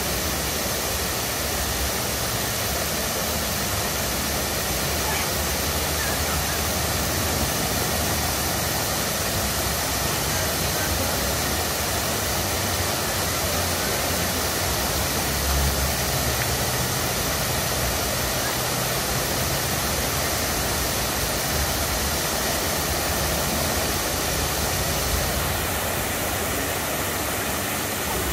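Large fountain's water jets spraying and splashing back into the pool, a steady rushing hiss with a low uneven rumble underneath; the hiss thins slightly near the end.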